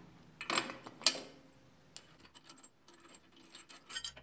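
Steel bolt and nut clinking against the cast iron frame of a 14-inch bandsaw as the bolt is fitted through a wooden riser block: two sharp clinks about half a second apart, then a run of light, quick clicks and taps.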